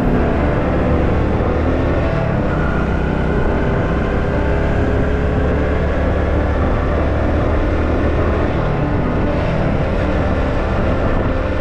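Steady road and wind rumble from a vehicle travelling at speed, unchanging throughout.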